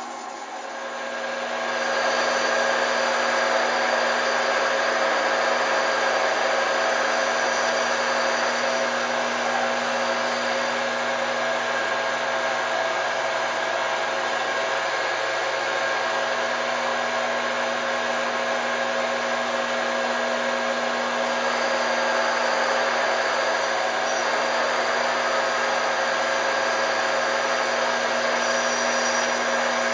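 Emco Super 11 CD metal lathe running under power with a steady whirring hum and a whine of several steady tones from its drive, turning a metal bar as the tool cuts at its end. The sound builds over the first two seconds, then holds steady.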